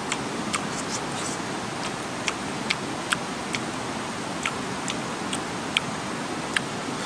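Sharp mouth clicks and smacks of someone chewing a roasted chicken head, coming about two a second, over a steady background hiss.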